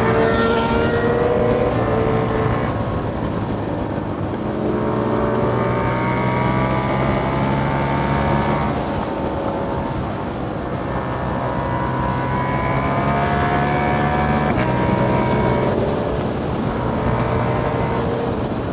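KTM Duke 890R parallel-twin engine through a catless Austin Racing GP1R exhaust, revving hard under acceleration. The pitch climbs, drops back and climbs again about four times as the rider gets on and off the throttle.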